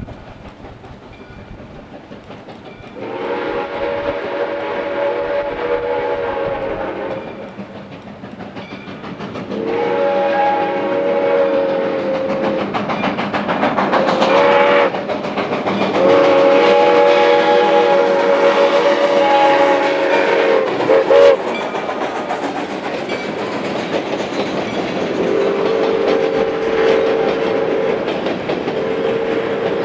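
Soo Line 1003, a 2-8-2 Mikado steam locomotive, blowing its steam whistle for a grade crossing in the long, long, short, long pattern, then a further long blast near the end. Underneath, the train's rumble and the clatter of its cars over the rail joints grow as it rolls past.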